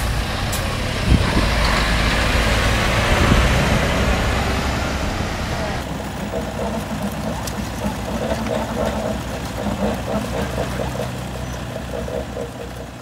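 A motor vehicle's engine working hard under load while towing on a rope, loudest in the first half and easing off about halfway through. Indistinct voices come over it in the second half.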